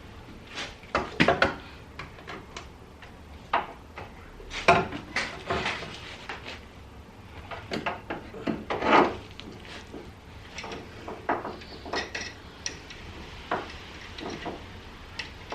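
Irregular metallic clinks, clanks and knocks of hand tools and suspension parts being handled while a front air-suspension strut is fitted.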